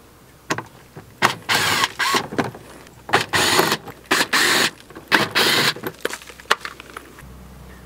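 Cordless power driver running in several short bursts as it backs out the Phillips screws holding a small plastic under-cover, with a few clicks between the runs.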